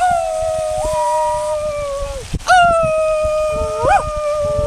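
Loud, drawn-out howling: two long held howls of about two seconds each, the first briefly stepping up in pitch, then short rising-and-falling yips near the end.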